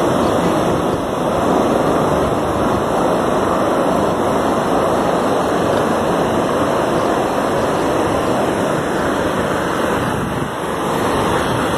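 Steady rush of surf breaking and washing up the beach, mixed with wind.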